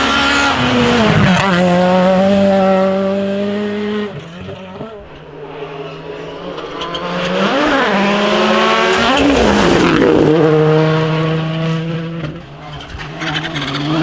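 Rally car engines at high revs as cars pass one after another. The first engine, a Renault Clio's, falls in pitch as it goes by and then holds steady. After a quieter moment, a Hyundai i20 WRC's engine rises and falls twice, then holds steady high revs.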